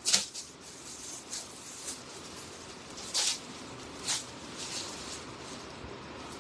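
Clothing being handled: a series of short, soft rustles at irregular intervals, the first and loudest right at the start.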